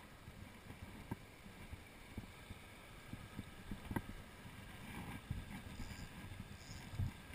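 Shallow mountain torrent running over stones, with wind on the microphone and a few faint clicks and knocks of handling; a soft thump near the end is the loudest.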